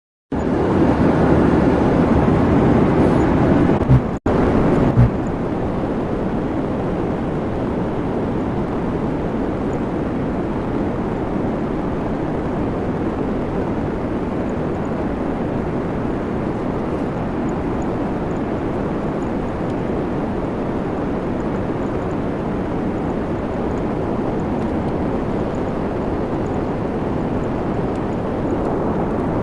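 Aircraft engine noise at an airshow: a steady roar, louder for the first few seconds, broken briefly about four seconds in.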